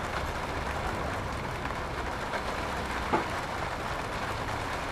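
Steady rain falling, an even hiss, with a single light knock about three seconds in.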